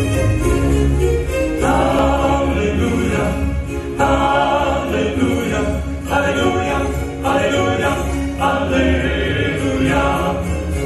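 Male vocal quartet singing in close harmony through microphones over musical accompaniment with a steady low bass. The singing comes in phrases about two seconds long, from just under two seconds in.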